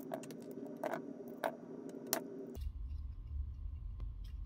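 Small sharp clicks of a micro screwdriver and small metal and plastic parts being handled while the screws and metal plate come off a laser distance meter's screen, four clear clicks in the first two seconds and fainter ticks after. A low hum comes in about two and a half seconds in.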